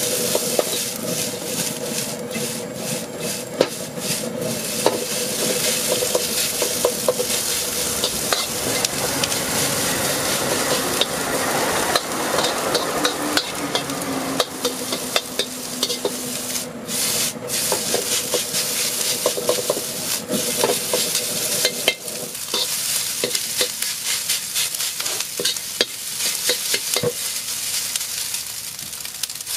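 Fried rice sizzling in a hot wok while a metal ladle stirs and scrapes it, with frequent quick clicks and scrapes of the ladle against the wok over a steady frying hiss.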